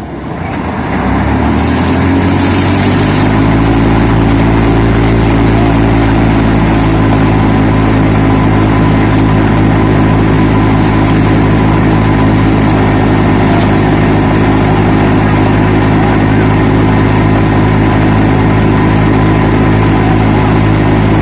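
Harvester engine speeding up over the first few seconds, then running steadily and loud at high speed.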